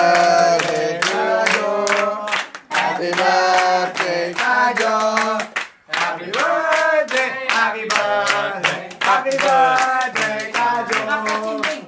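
A group of people singing together, with steady hand clapping in time.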